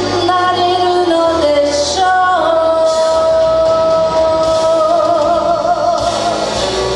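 A woman singing a ballad into a microphone over instrumental accompaniment. She holds one long note through the middle, and it wavers with vibrato toward its end.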